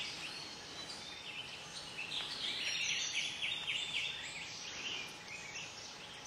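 Wild birds calling and singing: many short high chirps and slurred notes, with a quick run of repeated down-slurred notes about two to four seconds in, over a steady background hiss.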